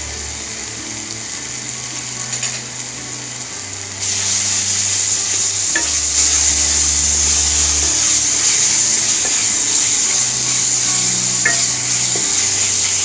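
Spiced onion masala frying and sizzling in hot oil in a kadai while being stirred with a spatula. About four seconds in the sizzle turns suddenly louder and hissier and stays so, with a few light spatula taps against the pan.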